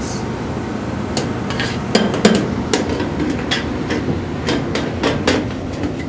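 York Diamond 80 gas furnace running in cooling mode, its blower humming steadily. About ten irregular sharp clicks and knocks sound over the hum.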